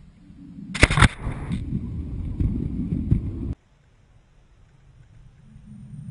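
A snow-plowing train ploughing through a drift: a low rumble builds as it approaches, then about a second in a loud crackling blast as the thrown snow hits the camera, followed by a steady rumbling rush of snow. The sound cuts off suddenly partway through, and the same build and blast start again near the end.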